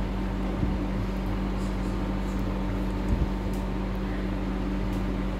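Steady machine hum over a background hiss, with a soft low thump about three seconds in.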